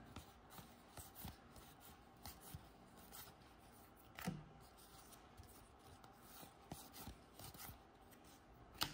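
Faint handling of NBA Hoops trading cards: cards sliding and flicking against each other as they are thumbed through a stack, with a soft tap about four seconds in and a sharper click near the end.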